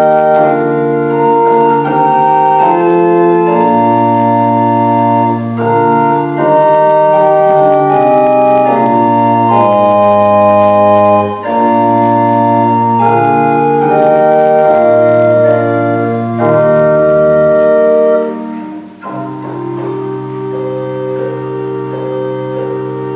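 Organ playing a sequence of full held chords that change every second or so. A little after three-quarters of the way through, it drops to a softer chord that is held.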